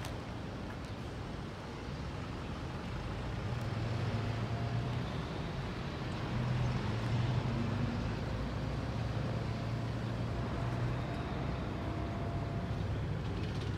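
Toyota Celsior's V8 engine running as the car rolls slowly at low speed, a steady low engine hum that grows louder through the middle as it comes close.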